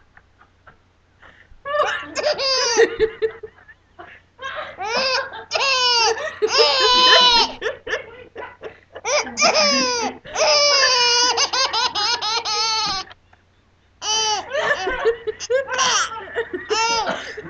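Baby laughing hard in long runs of high-pitched, squealing laughs, with a short pause about thirteen seconds in.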